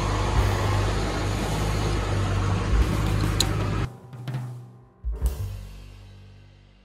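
A steady noisy hum runs for about four seconds and then cuts off suddenly. A single drum hit of background music follows about a second later and fades away.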